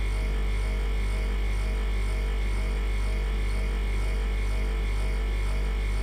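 Old freezer's compressor humming steadily: a deep constant hum with a throb that pulses about twice a second, and a faint high whine over it.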